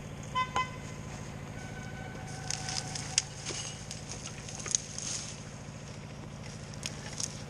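Yarder engine running steadily in the distance, with a short electronic whistle signal about half a second in. Scattered sharp ticks and crackles sound over the drone.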